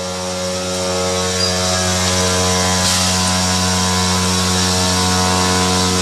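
CNC router spindle driving a finger bit through a 2 cm New Venetian Gold granite slab: a steady grinding whine over a constant machine hum. It grows louder over the first second or so as the bit bites, then holds steady.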